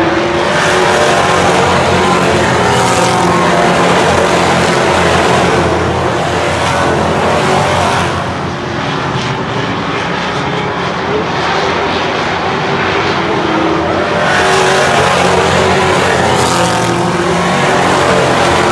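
A pack of stock cars racing around a short oval track, many engines running together in a dense, steady din. The sound dips about eight seconds in as the field moves to the far side of the track and swells again near the end as it comes back past.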